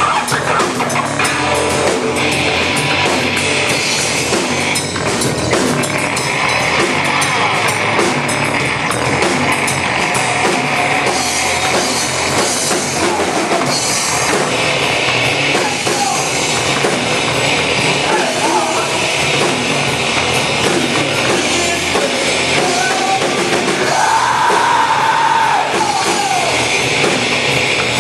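Rock band playing live: drum kit and guitars at a steady loud level, with a held high note near the end.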